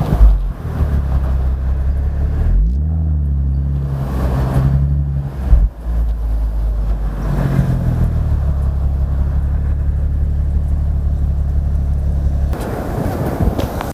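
BMW M135i's 3.0-litre turbocharged straight-six running through its exhaust: a steady idle, a rev rising about three seconds in and held for a few seconds, then a sharp bang as the revs drop back to idle. The steady engine note cuts out near the end, leaving a noisy rush.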